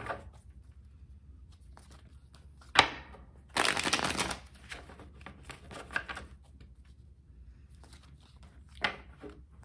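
Tarot deck being shuffled by hand: soft sliding rustles of cards, a sharp tap about three seconds in, then a loud riffle of the cards lasting about a second, with a few quieter shuffles near the end.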